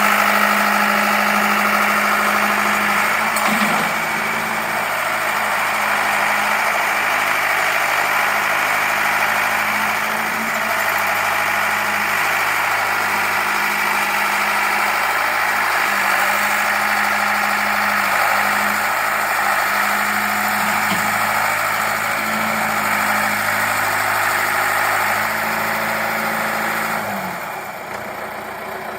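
1979 John Deere 410 backhoe engine idling steadily, its pitch wavering slightly, then winding down and stopping near the end.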